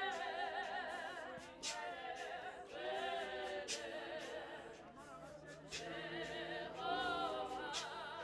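An a cappella choir singing in close harmony without instruments, several voices with vibrato, in a few short phrases.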